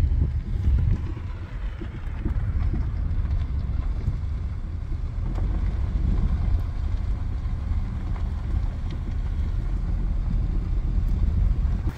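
Honda Element driving slowly on a dirt road, a steady low rumble of engine, tyres and wind buffeting the microphone on a very windy day.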